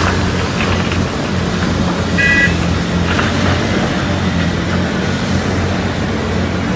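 Heavy diesel engine of a large Hitachi 890LC excavator running steadily under load while loading earth, with a short high-pitched beep a little after two seconds in.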